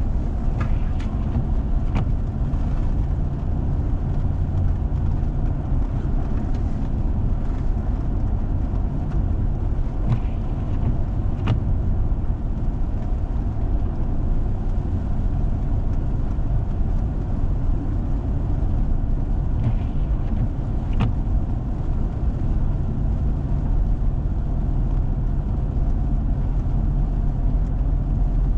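A four-wheel-drive vehicle driving on a snowy road: a steady low drone of engine and road noise, with a few sharp knocks now and then.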